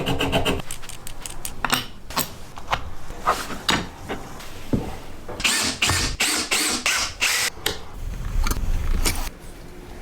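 Irregular sharp clicks and knocks of hand work with tools on wood, with a quicker run of clicks in the middle. A power tool's hum cuts off just after the start.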